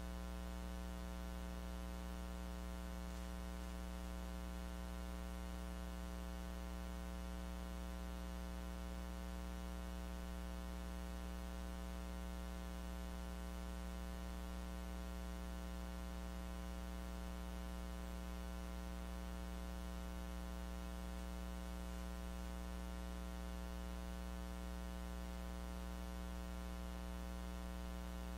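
Steady electrical mains hum with many overtones over a constant hiss, unchanging throughout and with nothing else on the track: the lecture's sound was not captured.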